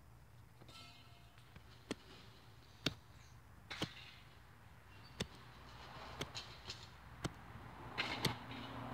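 A small hatchet chopping into dry dirt and grass: about ten sharp blows at an uneven pace, some in quick pairs, the loudest about three seconds in.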